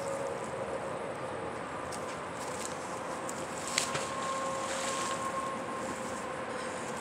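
A heavy neodymium fishing magnet on a rope splashes into creek water once, about four seconds in, over a steady background hum.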